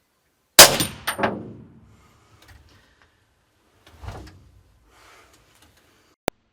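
A single gunshot, sudden and very loud, its echo coming back twice within the next second and fading out. A fainter thud follows about three and a half seconds in, and a short sharp click near the end.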